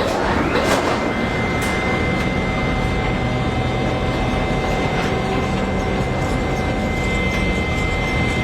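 A steady, even mechanical drone with a thin high whine held on one pitch, swelling in at the start.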